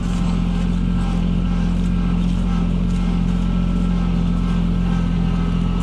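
Compact tractor engine running steadily at a constant speed while the tractor drags a landscape rake along a track.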